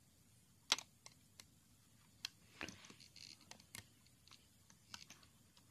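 Faint, irregular clicks and ticks of a metal loom hook working against the plastic pegs of a Rainbow Loom as rubber bands are looped over, about eight or nine in all.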